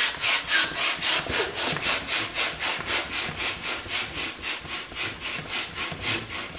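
Hand balloon pump worked in quick, even strokes, about four a second, each stroke a rush of air, fully inflating a 10-inch latex balloon.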